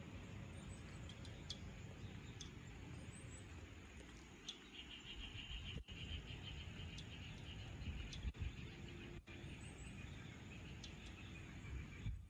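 Faint outdoor evening ambience: scattered short bird chirps and a rapid chattering trill from about four seconds in, over a low steady rumble.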